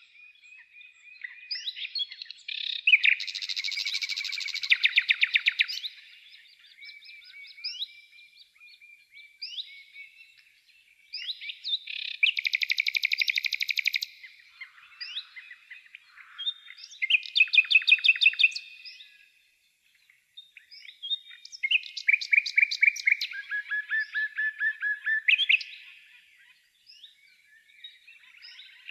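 Songbirds singing: four loud bursts of rapid trilled phrases, with softer chirps and whistles in between.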